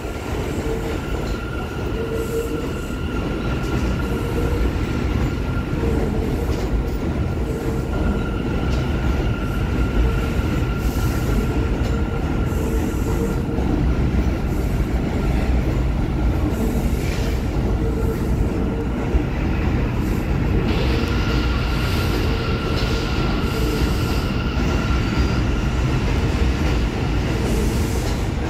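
New York City Subway R179 train rolling slowly past on elevated steel track: a steady rumble with a continuous high-pitched squeal.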